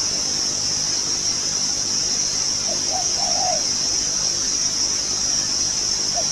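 A decoy dove coos once about three seconds in: a few short notes running into a longer rolling coo. It starts another call right at the end, over a steady high drone of insects.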